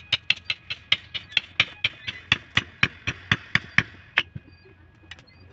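Quick metal hammer taps, about four a second, each with a short ring, driving a red-hot steel tang down into a wooden handle. The taps stop about four seconds in.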